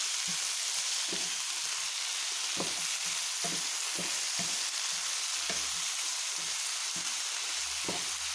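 Stir-frying in a pan: chicken meatballs, white radish and bell peppers sizzling steadily while a utensil stirs them, with irregular knocks and scrapes against the pan every second or so.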